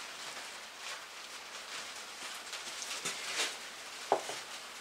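Light handling noises: faint rustling and a few small knocks, the sharpest about four seconds in as the engine's valve cover is taken hold of and moved.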